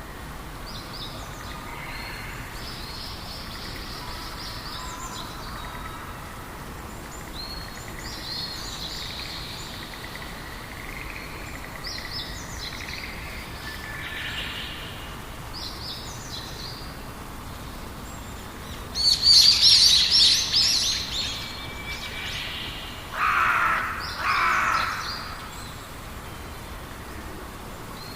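Wild birds singing: a short high song phrase repeats every few seconds, a louder burst of rapid high notes comes about two-thirds of the way in, and two lower, louder calls follow, over steady low background noise.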